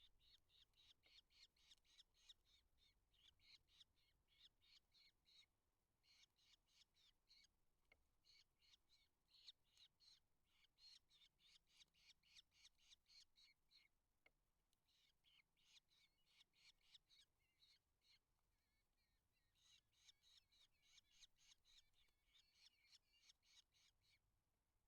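Eurasian hobbies at the nest giving faint, rapid runs of high, repeated calls, several a second. The runs last a few seconds each, with short pauses between them.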